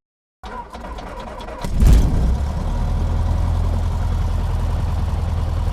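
Aircraft engine starting: a run of quick clicks as it cranks, then it catches with a loud low burst about two seconds in and settles into a steady idle.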